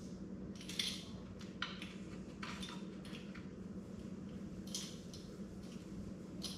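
Spline roller pressing rubber spline and screen mesh into the groove of a screen-door frame: a series of short scratchy rasps, about six in all, over a steady low hum.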